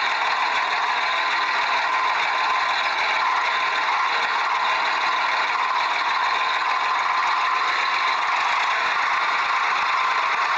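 Toy tractor running: a steady, high-pitched whirring buzz with no low rumble.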